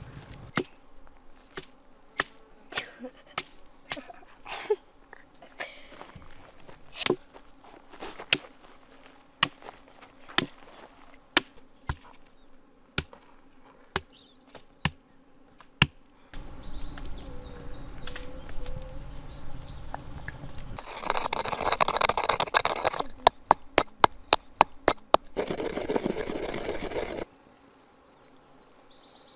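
Wooden meat mallet pounding pork slices through plastic wrap on a wooden board: single sharp strikes, a little more than one a second. Later comes a faster run of knocks, and birds chirp faintly near the end.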